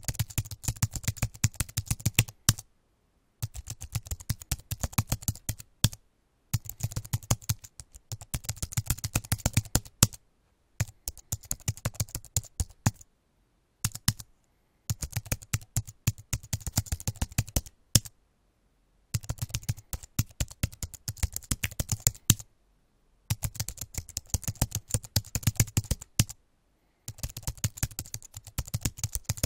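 Typing on a computer keyboard: rapid runs of key clicks in bursts of a second or two, broken by short pauses.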